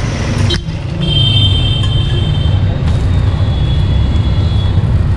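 Steady low rumble of road traffic and a bus running close by, with a thin high tone coming in for a couple of seconds about a second in.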